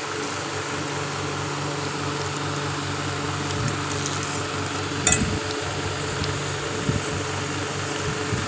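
A fan running steadily with a low hum, with a few brief clicks, the loudest about five seconds in.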